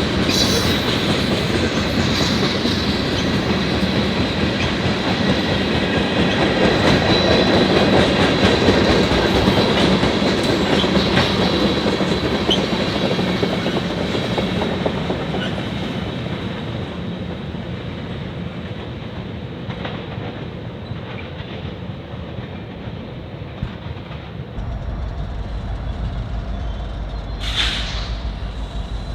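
Freight train cars rolling past with a steady clickety-clack of wheels over rail joints and a thin, high, steady squeal from the wheels. The sound is loudest in the first half and fades gradually after that, and a low rumble comes in near the end.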